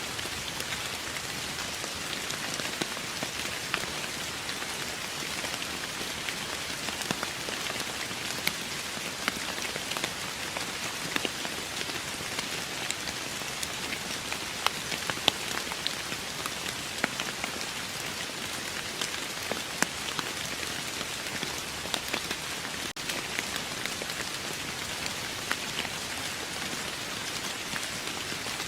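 Steady rain falling, an even hiss dotted with many separate drops ticking sharply onto a hard surface at irregular moments.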